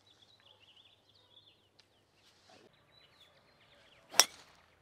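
A golf club striking a teed ball: one sharp crack about four seconds in, the loudest sound. Faint bird chirps come before it.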